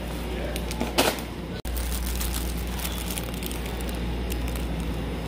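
Wire shopping cart rolling over a concrete store floor: a steady low rumble with light rattling clicks. There is a short loud rustle about a second in, and plastic snack packaging is handled and crinkles.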